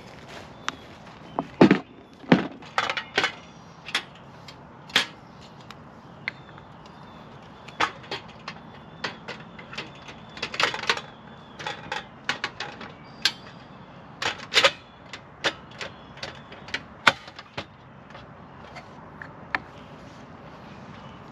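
Irregular clicks, knocks and light clatter of camping gear handled on a wooden picnic table while a portable butane stove is set up and its gas canister loaded, with two heavier thumps about two seconds in.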